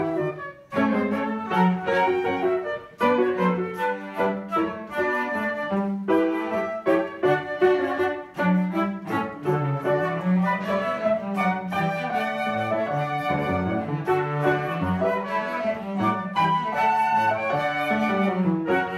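Trio of two flutes and a cello playing a classical piece together, the flutes carrying the melody over the cello's lower line, with a few brief breaks between phrases in the first half.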